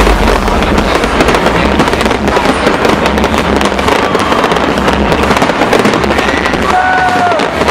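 Fireworks display going off without a break: a dense, loud crackle of many small bursts, with a few short pitched tones near the end.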